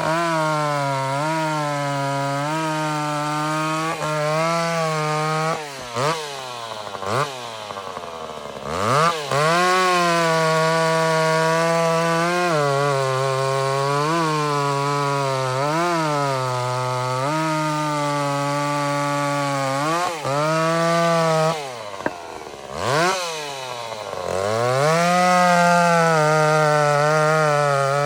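Vintage two-stroke chainsaw running at high revs, its pitch sagging and recovering as it works through the wood. Twice it drops steeply to a low idle and revs back up, about a quarter of the way in and again past the middle.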